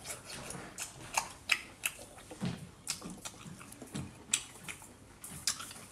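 Close-up eating sounds of a person eating sea snails: wet lip smacks, slurps and chewing, heard as a quick, irregular run of sharp smacks and clicks.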